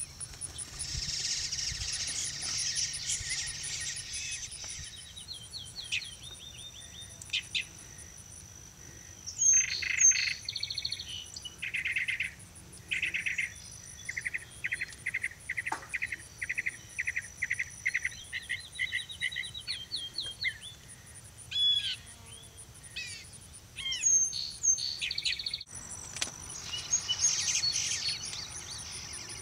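Assorted wild birds other than the bluebirds chirping and calling, in short notes and quick runs of repeated notes, over a steady high insect trill.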